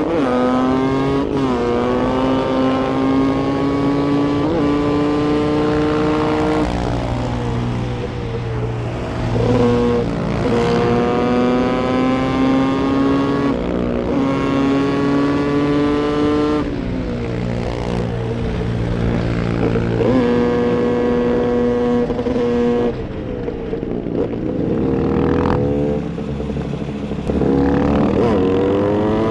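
Two-stroke motorcycle engine revving hard, its pitch climbing under acceleration and dropping back several times, as with repeated throttle runs or gear changes.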